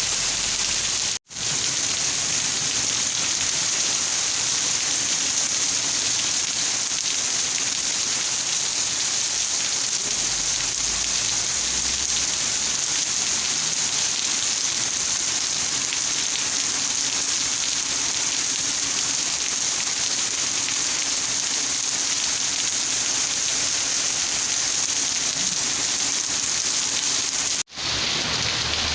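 Steady, dense rain falling, a continuous even hiss that cuts out for an instant twice, about a second in and near the end.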